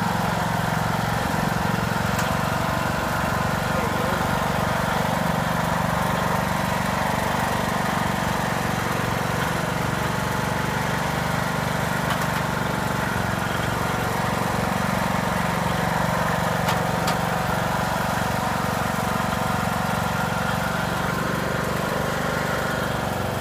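Riding lawn mower engine running at a steady speed, a constant drone that does not change.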